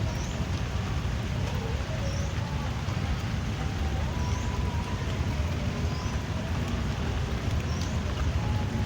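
Drizzling rain falling steadily, an even hiss over a low rumble. A short, high, rising chirp repeats about every second and a half throughout.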